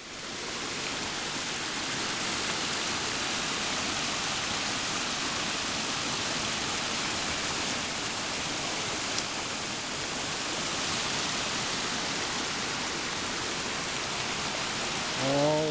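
A brook swollen by heavy rain rushing loudly past, a steady even water noise that swells during the first second.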